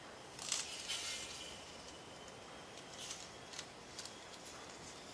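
Clear plastic bags crinkling as small parts are handled and unwrapped, in a few short rustles, the loudest about half a second in.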